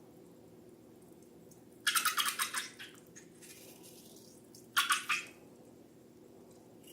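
Slime being squished and worked by hand: two bursts of rapid wet crackling, the first about two seconds in and lasting about a second, the second shorter about five seconds in.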